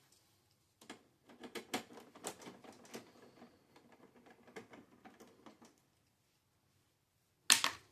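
Irregular clicking and rattling of a printer's parts as it is taken apart with a hand screwdriver, for about five seconds, then a short pause and one loud sharp clack near the end.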